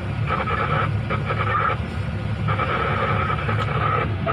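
Heavy excavator's diesel engine running steadily, with a higher whine that cuts in and out several times.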